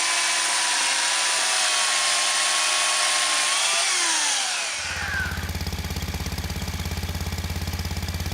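A chainsaw running hard with a loud, hissy whine whose pitch slides down near the middle and then stops. It is followed by a small engine running with a fast, even low thudding.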